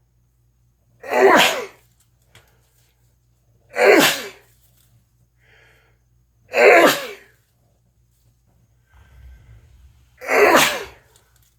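A person sneezing four times, a few seconds apart, in a sneezing fit that keeps on going.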